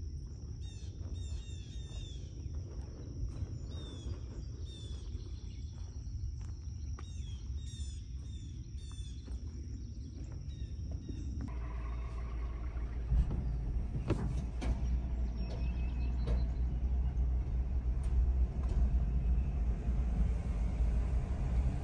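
Birds chirping and a steady high insect drone over a low rumble. About halfway in this gives way to the inside of a pickup truck's cab with the engine running and a louder low rumble, with a few clicks.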